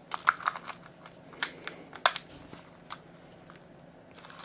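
A string of small, sharp plastic clicks and snaps, the loudest about a second and a half and two seconds in: a Fujifilm NP-45 battery being pushed into a Fujifilm FinePix J38 compact camera and the battery door being clicked shut.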